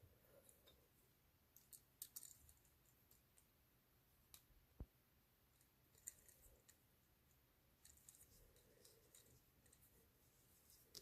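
Faint, scattered clicks and taps of small hand tools and tiny metal parts being handled while a 1/64-scale diecast truck's wheels and axles are fitted.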